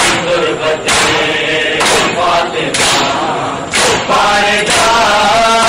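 Crowd of men chanting in unison, punctuated by sharp slaps of hands striking bare chests about once a second: Shia matam (ritual chest-beating) kept in time with the chant.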